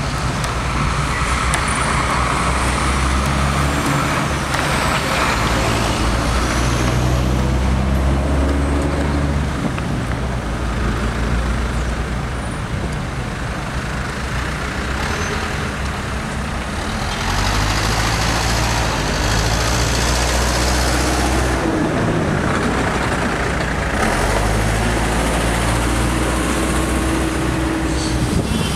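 Diesel engines of heavy construction machinery such as excavators running under changing load, rising and falling every few seconds, with a steady noise of traffic and work.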